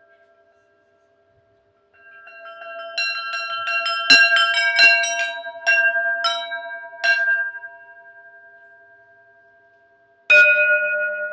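Struck metal bells ringing. About two seconds in comes a quick run of strikes that builds and then thins out, and the tones are left to ring and fade. A single loud strike comes near the end.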